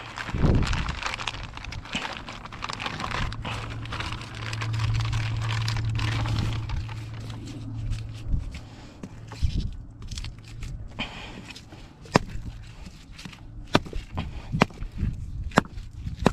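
Plastic bag of squid bait crinkling as it is handled and opened, over a low steady hum for the first half. After that come scattered sharp clicks and taps as a squid is pulled out.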